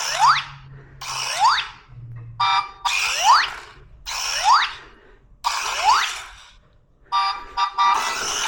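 Electronic sound effect: a quick rising swoop over a buzzy tone, repeated about once a second, seven or eight times, with a choppier burst near the end.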